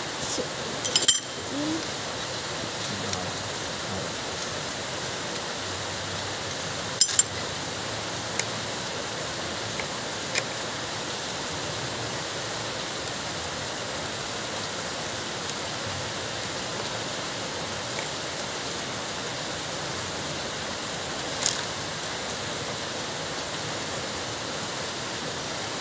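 A few sharp metal clicks and clinks from the parts of a Toyota Corolla power steering rack as it is reassembled by hand, a double click about seven seconds in, over a steady hiss.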